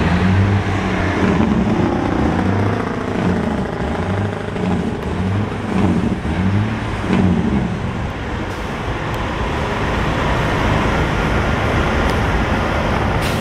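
Semi trucks' diesel engines running, with road traffic going by. A low throbbing comes and goes for the first seven seconds or so, then the sound evens out.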